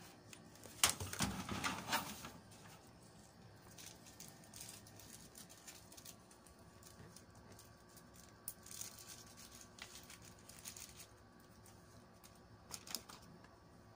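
Faint knocks and clicks from handling and fitting a side panel onto a desktop computer case, a few sharp ones about a second in, then only scattered light taps.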